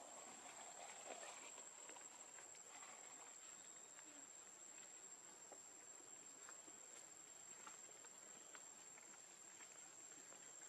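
Faint ambience: a steady high-pitched insect drone with scattered soft ticks and rustles.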